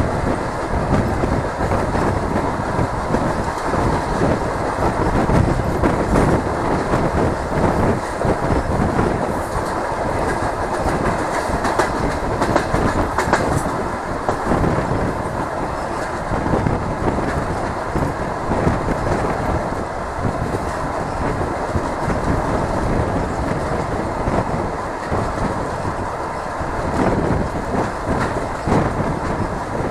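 DR1A diesel multiple unit running at speed, heard through an open carriage window: a steady rush of running noise with the wheels clattering over the rails.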